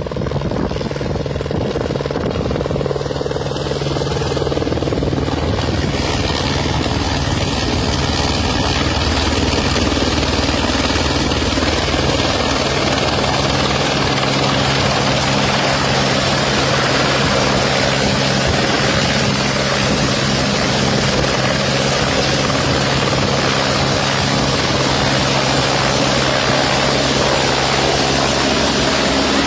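Single-engine light helicopter hovering low with a water bucket slung beneath, its rotor and turbine running loud and steady. The sound grows slightly louder over the first several seconds.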